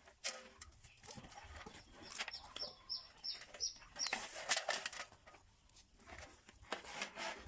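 A bird chirping about seven times in quick succession, each chirp a short, high, falling note, among scattered short rustling and knocking noises.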